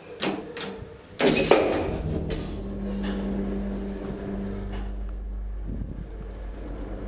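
DEVE hydraulic elevator starting after the down button is pressed: a click, then a louder clunk about a second in, followed by the steady low hum of the elevator's hydraulic machinery running.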